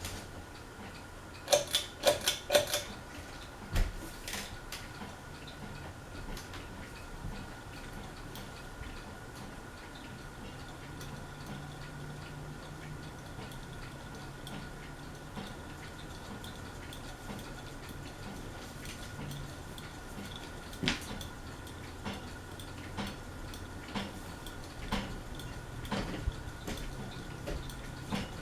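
Craftmade Phoenix ceiling fan running at medium speed with a quiet, steady hum. Light clinks break in: a quick cluster about two seconds in, single ones later, and a run of evenly spaced ticks about a second apart near the end.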